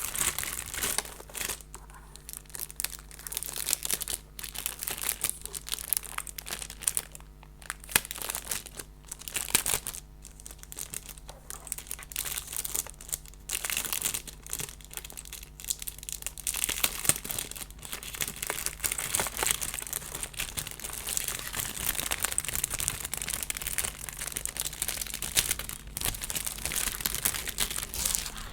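Packaging crinkling and rustling as it is handled and pulled off a keyboard during unboxing, in irregular crackly bursts with occasional sharp crackles, over a low steady hum.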